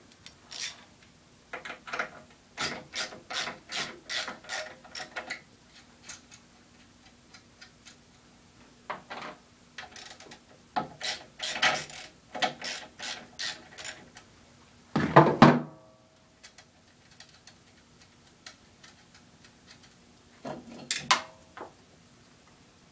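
Hand ratchet wrench clicking in runs of quick, even strokes as the bolts holding the gearbox onto a paramotor engine are undone, with a louder knock about fifteen seconds in.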